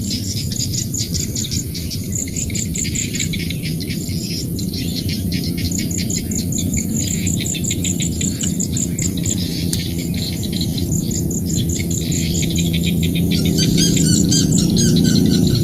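Rice-field chorus of frogs, insects and birds: a dense low chorus of frogs under rapid, pulsing high chirping. A bird's flurry of calls joins near the end.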